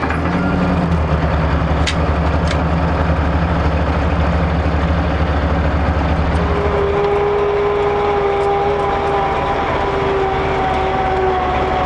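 Diesel engine of a tracked armored vehicle running steadily with a deep hum. About seven seconds in the sound changes and a steady whine joins the engine.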